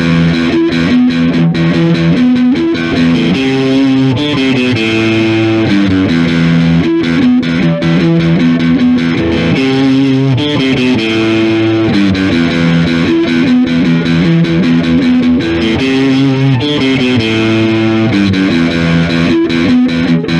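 Instrumental song intro: distorted electric guitar playing a repeating chord riff, the pattern coming round about every four seconds, with no vocals.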